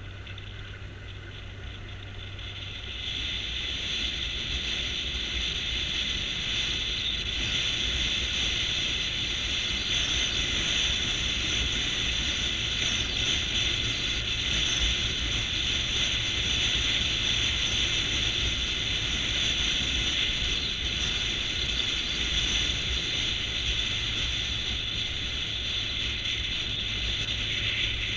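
Motorcycle running along the road, heard through a camera mounted on the bike: a steady mechanical whir and rattle over the engine, growing louder about three seconds in.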